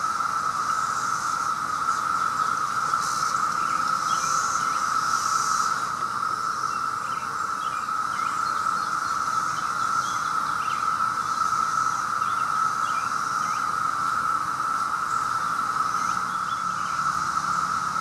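Dense chorus of 17-year periodical cicadas: many males singing at once in one steady, unbroken drone, with a fainter higher buzz that swells and fades.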